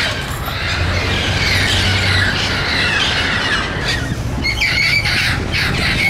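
A flock of parrots squawking and screeching, with many short calls overlapping without a break and a steady low rumble underneath.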